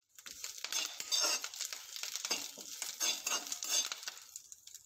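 Steel spatula stirring and tossing curry leaves in a little hot oil in a kadhai, with irregular scraping and clattering against the pan over a light sizzle; the leaves are being roasted until crisp. The stirring starts just after the opening and thins out near the end.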